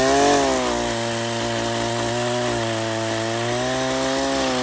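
Proyama 42.7cc two-stroke pole saw held at high throttle while its chain cuts through a tree limb; the engine note holds high and nearly steady, wavering slightly under the load of the cut.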